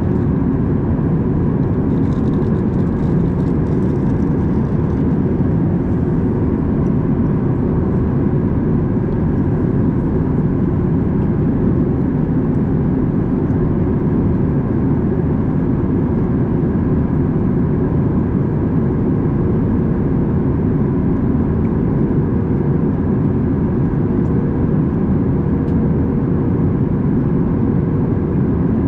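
Steady in-flight cabin noise inside a Boeing 737 MAX 8 airliner: a constant low rush of air and the CFM LEAP-1B engines, with a faint steady hum riding on top.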